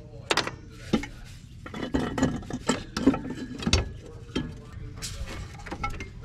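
Irregular metallic clicks, knocks and rattles of parts and tools being handled as the upper intake manifold is worked loose and lifted off a car engine, busiest in the middle.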